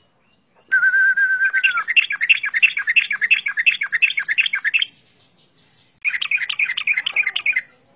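Yellow-vented bulbul (trucukan) singing. About a second in it gives a short held whistle, then a fast run of repeated notes, about three or four a second, for about three seconds. After a brief pause a second run comes near the end.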